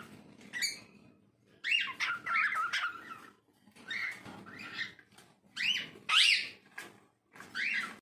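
Pet cockatiel whistling in several short warbling phrases of rising-and-falling notes, with brief pauses between them.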